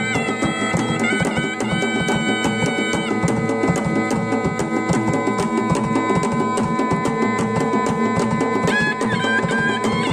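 Traditional folk ensemble: two wind pipes with flared brass bells play a sustained, wavering melody over rapid, steady drumming on a large barrel drum, a double-headed drum and a bowl-shaped drum.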